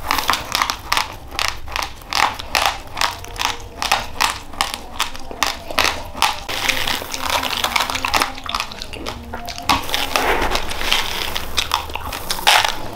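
A person chewing a mouthful of uncooked rice, the hard grains giving a long run of sharp crunches, about two or three a second, growing denser and grittier later. Near the end there is a louder rustle as a fresh handful of grains is scooped from a plastic rice bag.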